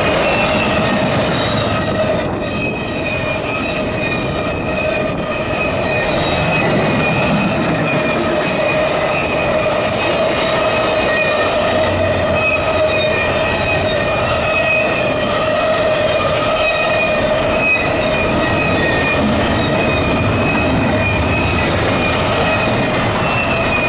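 Double-stack intermodal freight train's well cars rolling past at close range: a loud, steady rush of wheels on rail with a constant high-pitched wheel squeal running through it.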